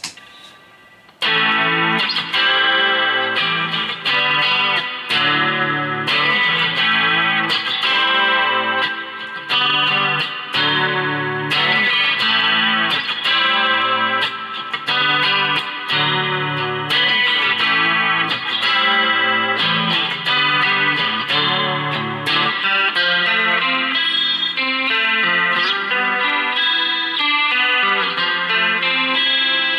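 Left-handed Chinese Telecaster-copy electric guitar playing through an amp, starting about a second in: a clean looped chord part with lead lines played over it. The lowest notes drop out about 22 seconds in.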